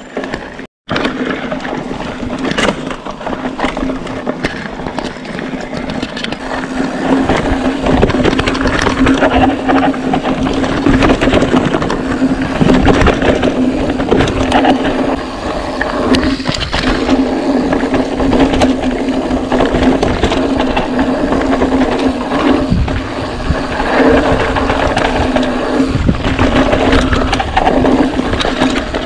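A 2021 Scott Spark 960 mountain bike rolling fast down a dirt trail: tyres crunching and scraping over dirt and debris, the bike rattling over bumps, with a steady low hum underneath. The sound drops out for a moment just under a second in.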